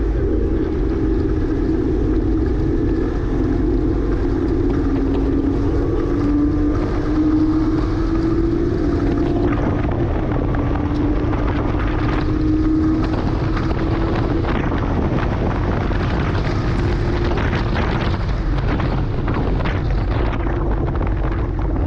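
2009 Porsche Cayman S's flat-six engine running under load on track, its pitch sagging for a few seconds and then slowly climbing again, over steady road and wind noise.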